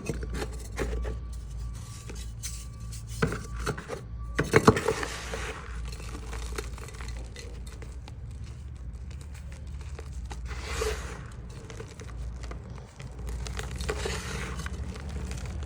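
Crunchy chalk being snapped and crushed: scattered sharp cracks, loudest about four and a half seconds in, then a softer gritty crumbling as it breaks down. A low steady hum sits underneath.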